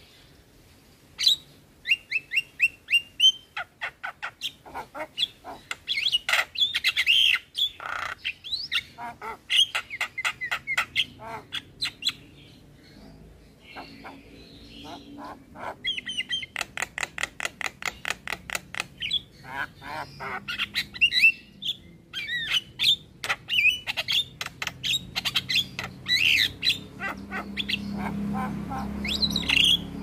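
Javan myna (jalak kebo) singing: rapid runs of chattering, clicking notes and short whistles, with a pause of a few seconds around the middle. A low hum builds under it near the end.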